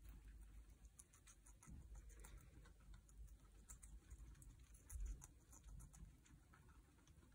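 Guinea pigs munching shredded carrot and lettuce: faint, irregular crunching and small crisp clicks of chewing.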